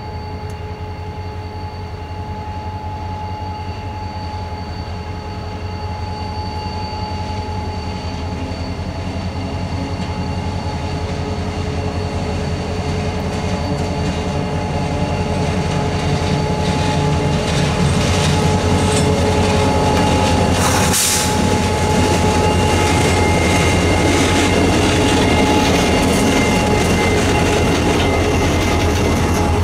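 Freight train with an EMD diesel locomotive approaching and growing steadily louder, then passing about two-thirds of the way in, followed by flatcars loaded with welded rail rolling by. A steady high ringing runs over it, and a sharp crack comes as the locomotive goes past.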